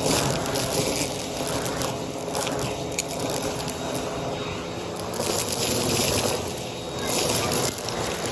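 Vacuum cleaner running with a dusting brush attachment: a steady motor hum under a rushing air hiss that swells and fades every second or two as the brush moves over surfaces.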